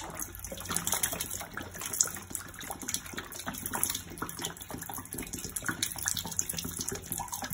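Water pouring out of an upside-down plastic water bottle into a ceramic bathroom sink. It splashes and gulps unevenly as air bubbles up through the neck into the unswirled bottle, slowing the flow.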